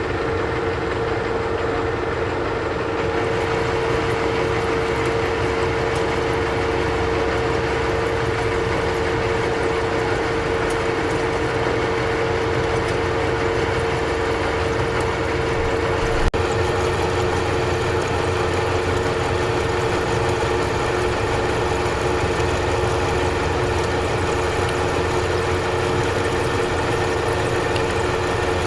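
Old Monarch engine lathe running steadily under power, with a constant gear whine, while turning a hot-rolled 1018 steel bar. A single sharp click about 16 seconds in.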